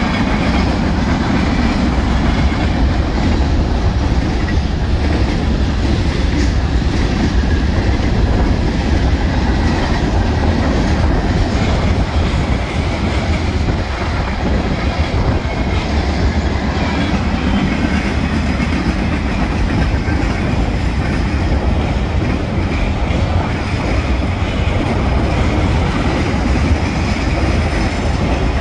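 Freight cars of a Union Pacific manifest train rolling past close by: a steady, loud rumble of steel wheels on the rails.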